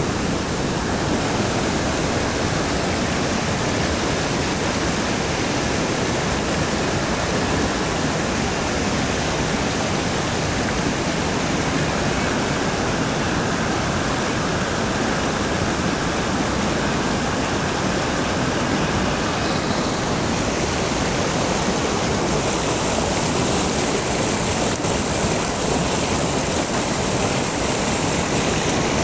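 Fast mountain stream rushing over and between boulders in white-water cascades: a steady, unbroken water noise.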